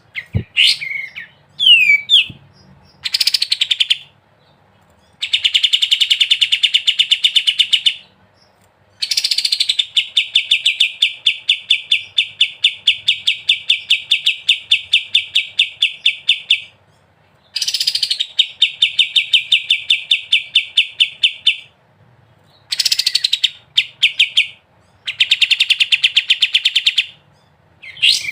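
Kapas tembak bird singing its rapid, chattering 'ngebren' song: long runs of fast repeated notes, each run opening with a short upward sweep, in several phrases broken by brief pauses.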